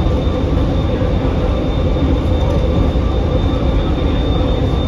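Phoenix Sky Harbor Sky Train, a rubber-tyred Bombardier Innovia automated people mover, running steadily along its guideway, heard from inside the car: a steady low rumble with a thin high whine over it.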